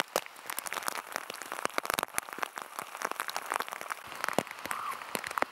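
Hail falling, a dense, irregular pattering of many small ticks as hailstones strike.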